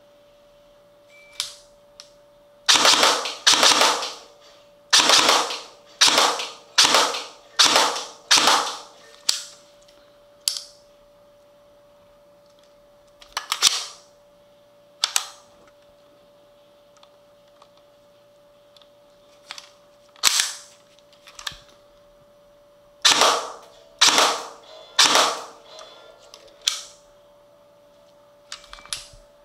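G&G PCC45 electric airsoft gun (AEG) firing single shots, about twenty in all, in runs of roughly one a second with pauses between the runs.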